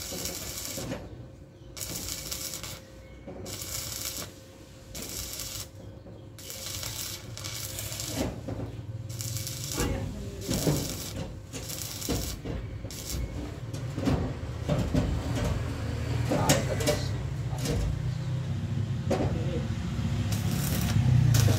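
Electric arc welding on the truck's steel bumper mounting: a crackling hiss that comes in short runs of about a second with brief pauses, as tack welds are laid. From about eight seconds in, a low rumble builds under the crackle, with scattered clicks.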